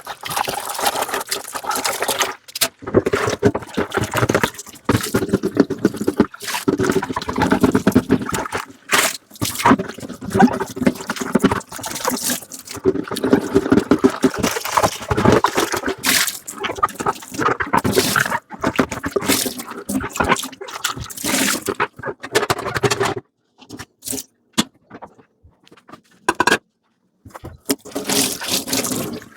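Kitchen tap water running and splashing in a sink as dishes are rinsed under it, the stream breaking up and changing again and again. About two-thirds of the way through it stops, leaving a few sharp clicks, and it starts again briefly near the end.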